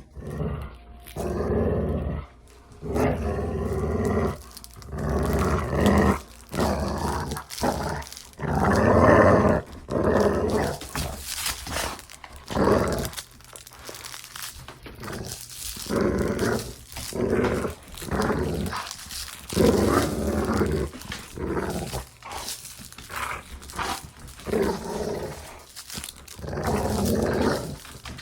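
Dog growling while playing: a long run of rough growls, each about a second long, with short pauses between them.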